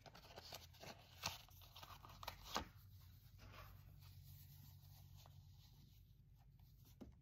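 Faint handling sounds: light rustling and a few soft clicks as a compact mirror is taken from its cardboard box and slid out of its soft black pouch.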